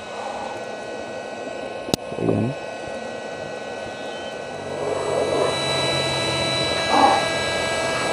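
Electric heat gun running steadily, its fan and motor giving a whine of several held tones over a rush of air, as it blows hot air into a tail light housing to dry out moisture. There is a sharp click about two seconds in, and the blowing gets louder about five seconds in.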